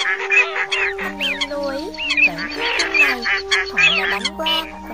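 Spliced recording of Eurasian coot, teal and wild duck calls layered together, as used to lure waterfowl: many short nasal quacking and honking calls repeat and overlap, over steady low tones.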